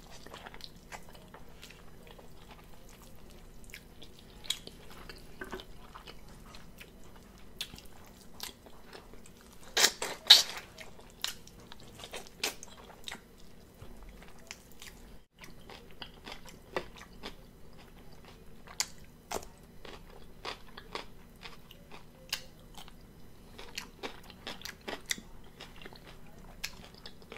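A person chewing and biting meat off cooked neck bones, a steady run of short mouth clicks, with a louder cluster of bites about ten seconds in.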